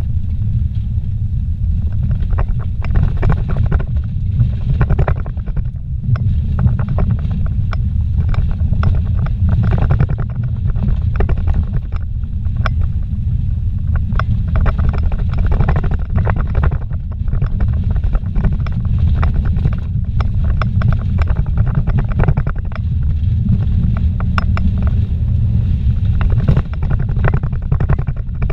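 A vehicle driving fast over a rough dirt road, heard from inside the cabin: a steady low rumble of tyres and suspension, with frequent small knocks throughout.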